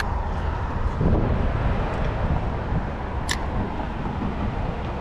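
Steady low outdoor rumble that swells about a second in, with one brief high-pitched sound a little past three seconds.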